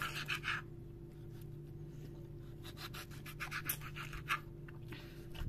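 Knife slicing small tomatoes on a plastic cutting board: faint scraping taps of the blade against the board, in a cluster at the start and another past the middle.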